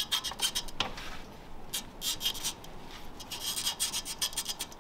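A hand tool working the pulse pump's mounting hardware against the metal bracket: runs of quick scraping clicks, stopping and starting several times.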